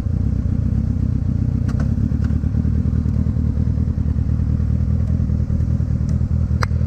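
Kawasaki Ninja ZX-6R's inline-four engine running steadily at cruising speed, an even low drone, with a sharp tick near the end.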